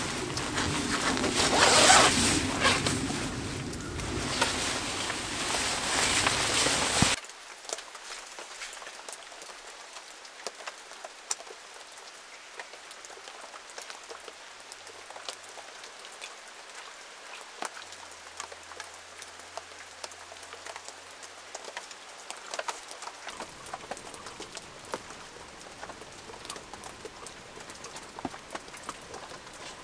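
A plastic rain poncho rustling loudly as it is pulled off, for about the first seven seconds. Then it cuts abruptly to steady light rain pattering, with scattered single drips ticking.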